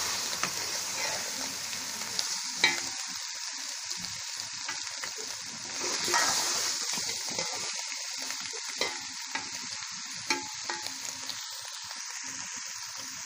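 Potatoes and spinach sizzling as they fry in masala in a metal pot, with a metal spoon stirring and scraping through them and knocking on the pot a few times. The sizzle swells about halfway through.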